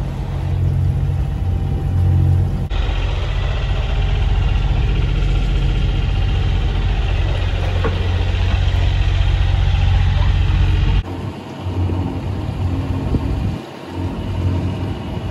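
A sailing yacht's engine running steadily while the boat motors along, with a strong low drone under wind and rushing water. The sound changes abruptly about three seconds in and again near eleven seconds.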